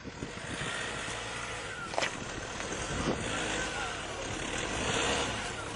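An SUV's engine running, with a steady noisy rumble and a couple of sharp knocks about two and three seconds in.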